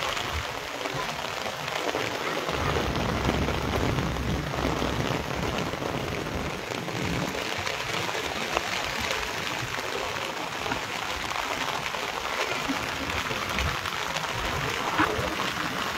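Heavy rain pouring onto a flat concrete rooftop, a dense, steady hiss of drops, with a low rumble for a couple of seconds near the start.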